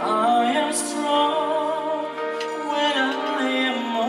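A man singing into a microphone, holding notes with a wide vibrato, over instrumental accompaniment.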